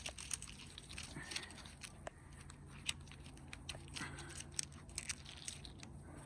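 Irregular small clicks and light handling noises: hands working on car door parts and trim.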